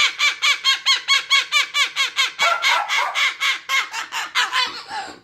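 A pet parrot giving a long, rapid run of short repeated pitched calls, about five a second, a little softer towards the end.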